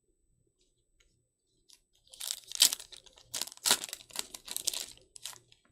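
Trading card pack wrapper being torn open and crinkled by hand, a run of crackling tears starting about two seconds in and stopping shortly before the end.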